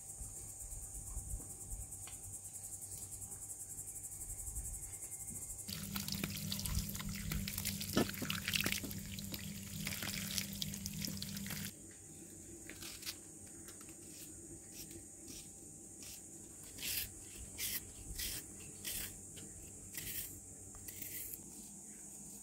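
Insects chirring steadily. From about six seconds in, water runs and splashes for about six seconds. After that, a knife peels a raw onion in a series of short, crisp cuts and scrapes, about one a second.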